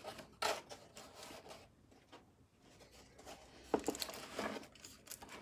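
Takeaway packaging handled on a table: foil wrap and a clamshell takeaway box rustle and click. There is a short rustle just after the start, then a few sharp clicks and crinkles a little under four seconds in, with quiet between.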